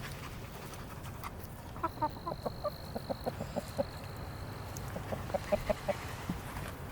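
Backyard hens clucking as they feed, in two quick runs of short notes.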